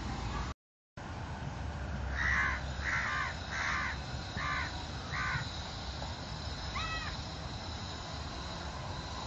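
A crow cawing five times, about two seconds in, over a low steady rumble; near the end of the calls another bird gives one short chirp.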